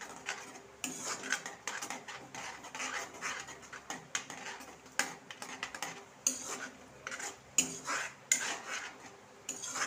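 A metal spatula stirring yogurt into a thick masala paste in a metal kadai off the heat: irregular scraping and clinking against the pan, with sharper knocks in the second half.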